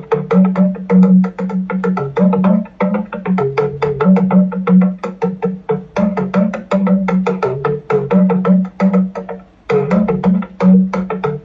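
Talking drum struck rapidly with a stick, the pitch of its low tone stepping down and back up between two notes as the tension is squeezed and released. The playing breaks off briefly about ten seconds in, then picks up again.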